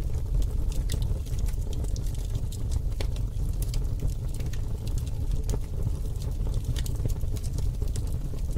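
A steady low rumble with scattered crackles and clicks.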